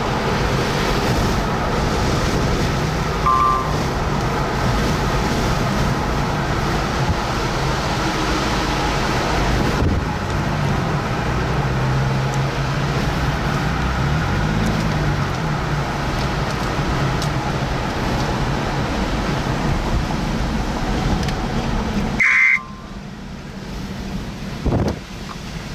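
Strong wind rushing over the microphone, with a vehicle running underneath and a brief tone about three seconds in; the noise drops off sharply near the end.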